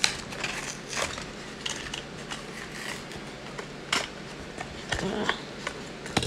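Hot Wheels blister pack being pried and torn open by hand: crinkling of stiff clear plastic and card, with a handful of sharp snaps and cracks spread through it.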